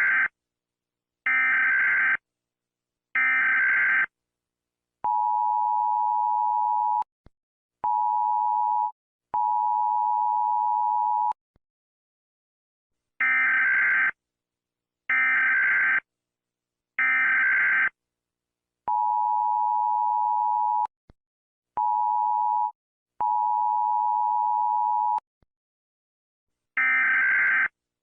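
United States Emergency Alert System alarm: three short bursts of screechy data tones, then the two-tone attention signal in three pulses, long, short, long. The pattern plays twice, and the data bursts start again near the end.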